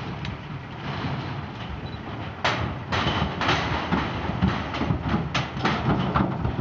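Wild horses' hooves and bodies knocking on steel pen panels and the metal stock trailer: a rumbling clatter of knocks that gets louder and busier about two and a half seconds in.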